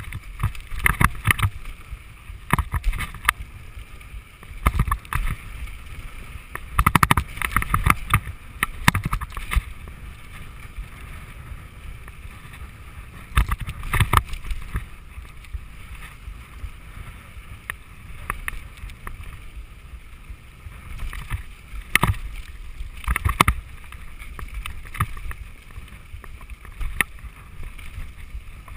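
Mountain bike descending a dry dirt trail at speed: steady wind rush on the microphone and tyre rumble, broken by bursts of clattering and knocking as the bike rattles over rough ground, heaviest about seven to nine seconds in and again around fourteen and twenty-two seconds.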